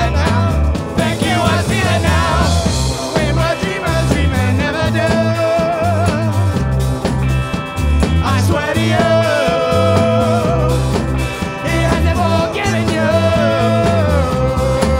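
Rock band playing live: a steady beat of drums and bass, with a held, wavering melody line on top.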